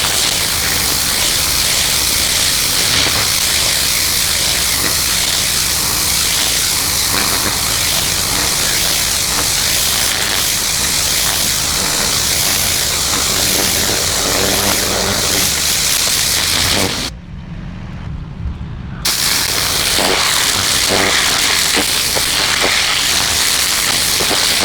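Pressure washer jet blasting grime off concrete steps: a loud, steady hiss of spray. About two-thirds of the way through the spray stops for about two seconds while a lower running sound carries on, then the spray resumes.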